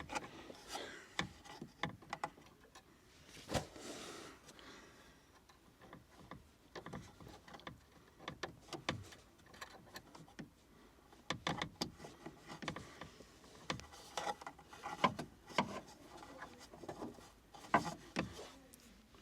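Irregular small clicks, knocks and rubbing from hands working the end fitting and retaining clip of a tailgate gas strut.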